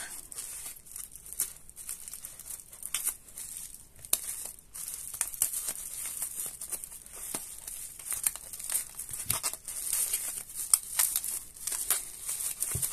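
Plastic bubble wrap crinkling and crackling in irregular bursts as it is handled, cut with scissors and pulled open, with small tearing sounds.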